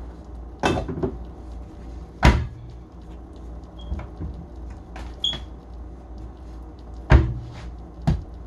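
Scattered knocks and thuds of kitchen items being handled and set down on a counter, the two loudest about two seconds in and near the end, with a couple of faint clinks between them. A low steady hum runs underneath.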